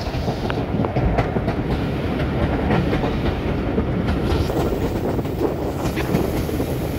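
Steam-hauled passenger train running at speed, heard from an open carriage window: a steady rumble of the carriage wheels on the rails with scattered sharp clicks from the track.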